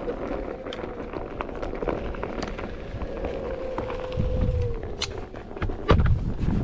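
Onewheel electric skateboard's hub motor whining steadily as it rides a dirt trail, with the tyre crackling over twigs and leaves; the whine fades out about four and a half seconds in. A loud thump near the end.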